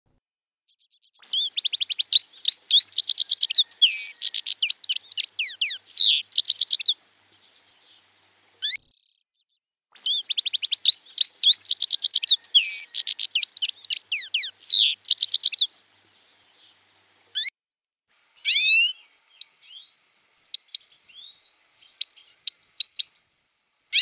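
European goldfinch singing: two long phrases of fast, tinkling twitters, the second starting about ten seconds in, then a few sliding notes and softer twitters near the end.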